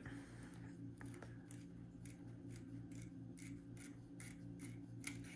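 Faint small metallic clicks and scrapes, about three a second, from a Zippo lighter's insert being handled while checking it for a flint.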